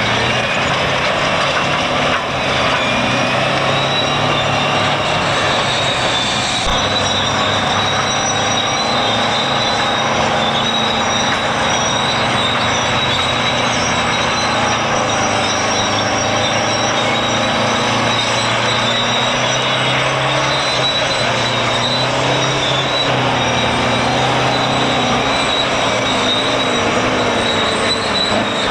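Heavy earthmoving machinery working: engines running steadily, with a high metallic squeal over the top.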